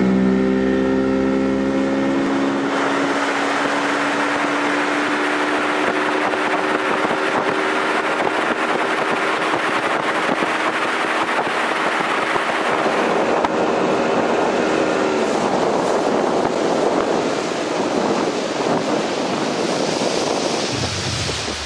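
Bass boat's outboard motor running under way, its pitch climbing in the first couple of seconds and then holding steady, with water and wind rushing past the hull. The engine tone fades about two-thirds of the way through, leaving the rush of water and wind.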